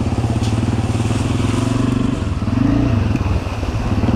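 Dirt bike engine running steadily at low revs, with a brief rise and fall in revs about halfway through.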